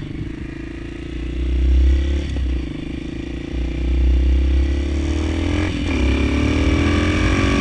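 Honda CRF230M supermoto's single-cylinder four-stroke engine pulling under way, with a short break in the engine note about two seconds in and another near six seconds, as at gear changes; after the second break the pitch climbs as it accelerates.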